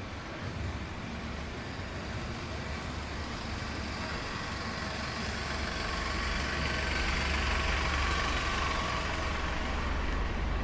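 A road vehicle passing close by on the street, its engine and tyre noise swelling gradually over several seconds and loudest near the end.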